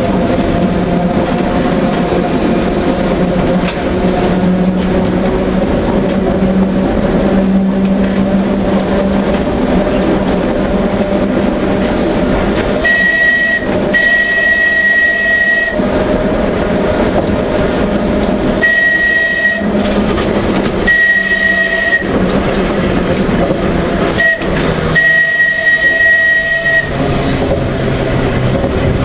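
Manx Electric Railway tramcar running on its track, with a steady motor hum and the rumble and rattle of the car. Around halfway a high-pitched metallic screech from the running gear sets in and comes and goes about five times, each for one to two seconds.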